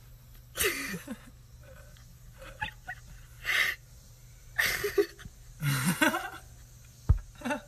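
A pet animal making short breathy sounds, about four bursts a few seconds apart, some with a brief pitched cry, and a single low knock near the end.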